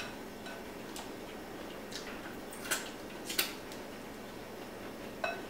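Dungeness crab shell being picked and pulled apart by hand: a handful of short, sharp cracks and clicks, the loudest near the middle.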